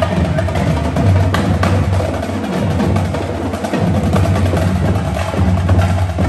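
Marching drumline of snare drums, tenor drums and bass drums playing a cadence, with crisp strikes over deep bass-drum beats.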